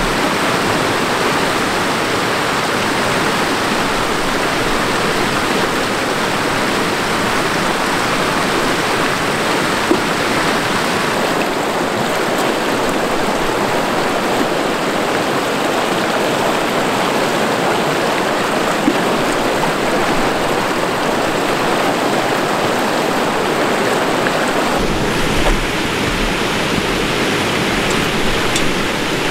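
Fast-flowing mountain stream rushing over rocks, a loud, steady rush of water. Its tone shifts slightly about 11 seconds in and again near 25 seconds.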